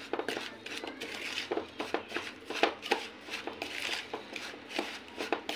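Metal spoon stirring and scraping a gritty powder mix of baking soda and citric acid in a plastic bowl, with many irregular clicks and scrapes.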